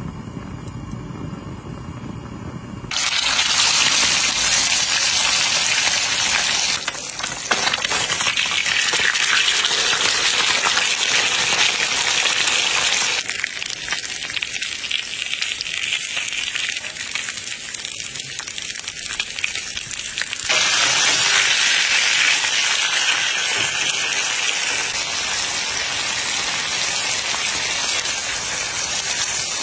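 Hot oil sizzling in a cast-iron fish-shaped sizzler platter as a whole fish fries: a steady hiss that jumps in level at several cuts. It is quieter for the first three seconds, while oil is poured into the platter.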